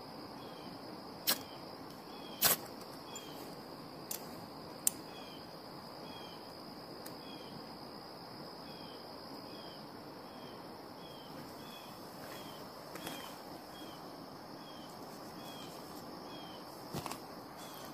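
Outdoor insect ambience: a steady high drone with a short falling chirp repeating about once a second. A few sharp clicks and taps cut through, mostly in the first five seconds.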